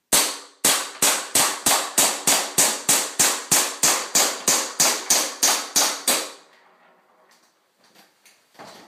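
Tokyo Marui M1911 Desert Warrior gas blowback airsoft pistol fired in quick succession: about twenty sharp shots at roughly three a second, stopping about six seconds in.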